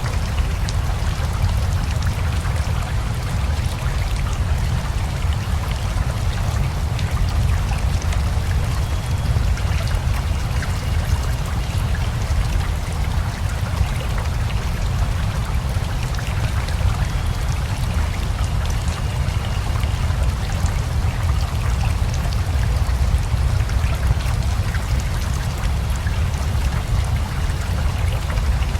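Steady rain mixed with a flowing river: a continuous, even wash of water noise with a strong low rumble.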